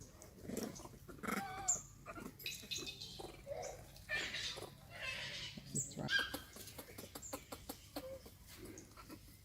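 Monkeys making short squeaks and chattering calls, mixed with scattered clicks, including a run of quick clicks about two-thirds of the way through.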